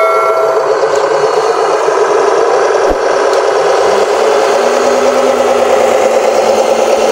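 Motor and drivetrain of a radio-controlled Hino 500 model truck running steadily, with a faint rising whine from about four seconds in. A bell-like ringing tone fades out in the first second.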